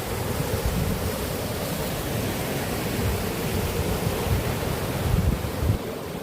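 Waterfall rushing steadily, with gusts of wind buffeting the microphone.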